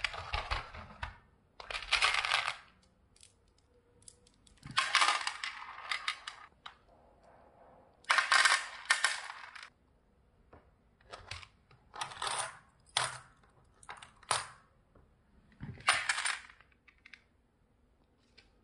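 Small glass beads clinking and rattling against each other and the plastic walls of a compartment organiser box as fingers stir through them, in about eight short bursts with quiet gaps between.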